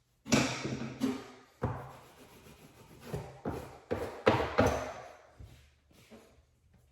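A series of knocks and thuds, several in quick succession over about five seconds, each sharp at the start and fading quickly, then quiet handling noise.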